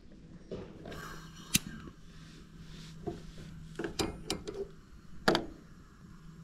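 Sharp clicks and metallic knocks from a propane camp stove as a stainless steel frying pan is shifted on its wire grate and the burner knob is worked, the loudest clank about five seconds in.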